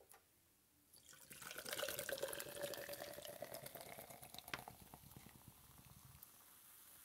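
Water running or pouring, with many small splashes and drips. It starts about a second in and tails off after about five seconds.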